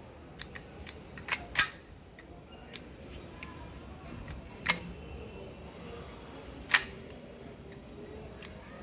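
Scattered small mechanical clicks, with two sharper snaps in the second half, from a CO2 air pistol being handled.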